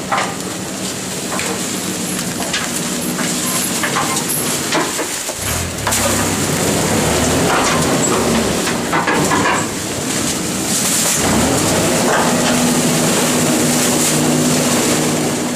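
Rear-loading garbage truck with a rotating-drum packer at work: the diesel engine speeds up about five and a half seconds in to drive the turning drum, dips briefly near ten seconds, then runs high again. Over it come scattered knocks and crunches as rubbish bags are thrown in and dragged into the drum.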